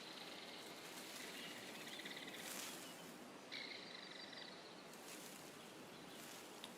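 Faint outdoor nature ambience: a steady hiss with two buzzy trills from a small animal, each about a second long, near the middle.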